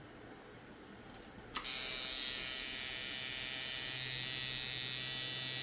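Small-coil tattoo machine switched on about a second and a half in with a click, then buzzing steadily as its armature bar hammers against the coils at about 126 cycles a second. It runs hard at 8 volts, pounding, with the supply needing to be turned way down.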